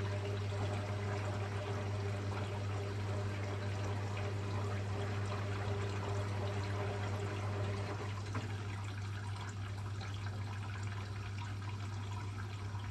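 Water running into a Hotpoint Experience WMEF641 washing machine as it fills, a steady pouring hiss over a constant low hum.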